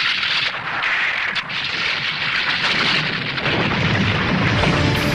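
Heavy rain falling as a dense steady hiss, with a low rumble of thunder swelling about three and a half seconds in.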